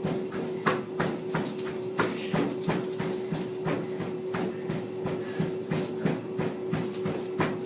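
Footfalls landing on a treadmill belt running at about 5 mph, about two steps a second, over the steady hum of the treadmill motor.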